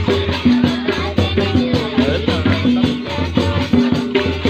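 Music with a steady beat: a held bass line and a short pattern of notes that repeats over and over.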